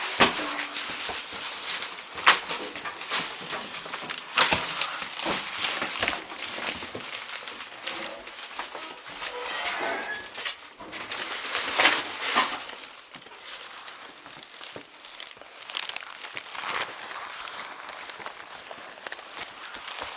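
Irregular rustling and crinkling with many scattered short knocks and clicks.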